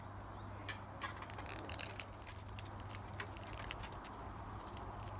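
Faint crinkling and light plastic clicks as an L.O.L. Surprise ball's layer is opened and a wrapped packet is handled, the clicks thickest a second or two in, over a low steady hum.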